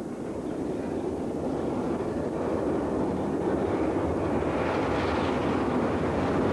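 Steam-hauled express behind an A1 Pacific locomotive approaching, a steady rumble that grows louder as it nears.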